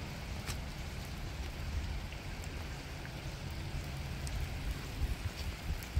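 Light rain falling on a wet road: a steady hiss with a few separate drop ticks and a low rumble underneath.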